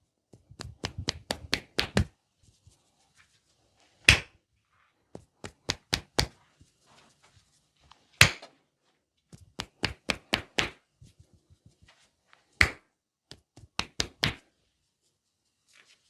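Hands striking in a percussive massage: quick runs of sharp slaps and chopping taps, broken every few seconds by a single louder slap.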